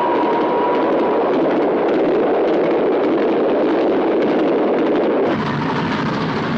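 Steam-hauled armored train running at speed: a loud, steady rush of steam and running gear. A thin steady tone fades out about a second in, and the noise changes and drops a little about five seconds in.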